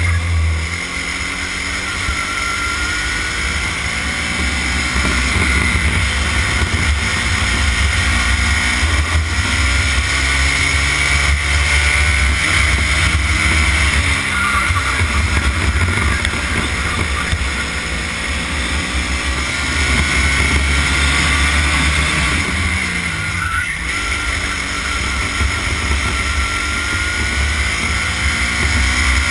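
Racing kart engine heard close up from on board at full race pace, its note climbing along the straights and falling under braking into corners several times.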